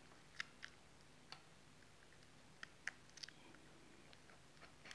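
Faint, irregular clicks and ticks of metal tweezers picking at the shattered touch-screen glass of an iPad mini 2, about ten over a few seconds.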